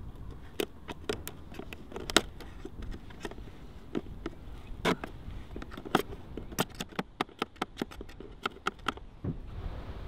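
Many irregular sharp taps and clicks, coming faster toward the end, over a steady low wind rumble.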